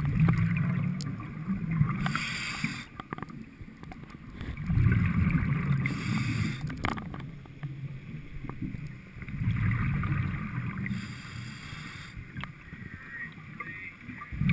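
A helmeted commercial diver breathing underwater: about three breath cycles, each a low rush of exhaled bubbles followed by a short high hiss of air through the helmet's demand regulator.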